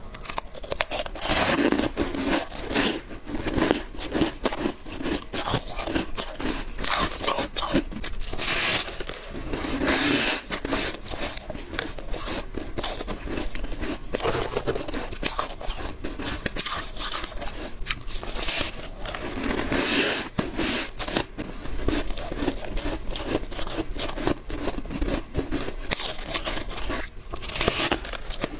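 Close-up biting of white ice: several loud, crisp, crunching bites a few seconds apart, with smaller crunching and crackling of the ice fragments between them.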